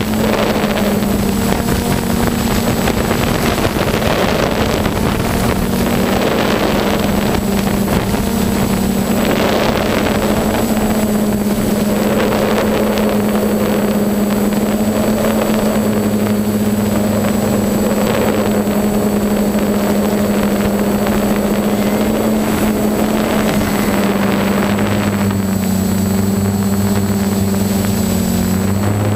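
Snowmobile engine running at a steady pitch, with a slight dip in pitch near the end.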